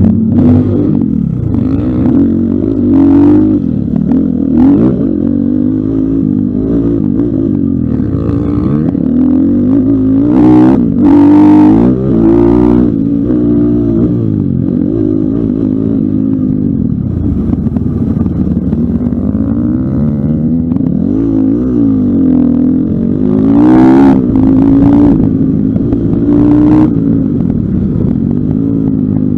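Pitster Pro LXR250f dirt bike's 250cc single-cylinder four-stroke engine under race throttle, its pitch climbing and dropping again and again as the rider opens and closes the throttle, with a few short clattering knocks along the way.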